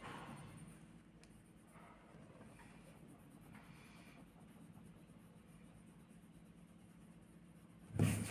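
Faint scratching of a pencil on paper in a few short strokes, then a single sharp knock near the end.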